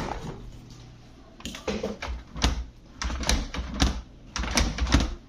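Plastic clicks and knocks from a French-door fridge's hinged center bar (door mullion) being worked by hand: one sharp click at the start, then an irregular run of knocks from about a second and a half in.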